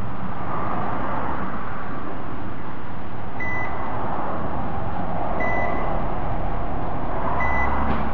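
HSD ES 721 M electrospindle running on a test bench, giving a steady rushing noise, with a short high beep about every two seconds.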